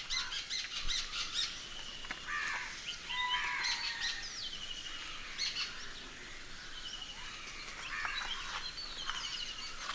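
Small birds chirping and calling, a busy mix of short high chirps and quick trills.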